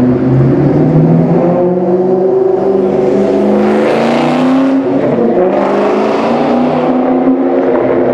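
Supercharged 4.6-litre V8 of a 2003 Ford Mustang SVT Cobra, breathing through a UPR X-pipe and MAC 3-inch cat-back exhaust, accelerating past. The engine note climbs in pitch, drops around four to five seconds in as the car goes by, then climbs again as it pulls away.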